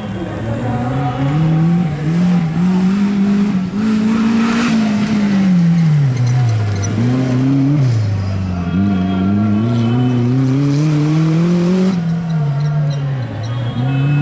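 Maruti Gypsy off-roader's engine revving hard. Its pitch climbs steadily, falls back and climbs again several times as the driver accelerates, shifts and lifts off.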